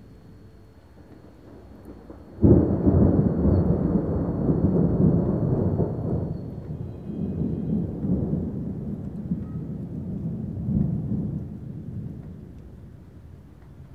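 Thunder: a sudden clap about two and a half seconds in, then a deep rumble that rolls on and slowly fades, swelling once more near the end.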